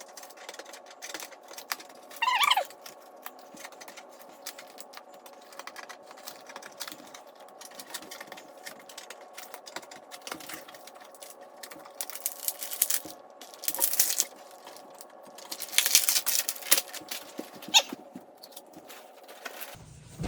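Unpacking and handling noise from a computer monitor's packaging: rustling and crinkling of packing material with scattered small knocks and clicks, louder crinkling bursts in the second half, and a brief falling squeak about two seconds in. A faint steady hum runs underneath.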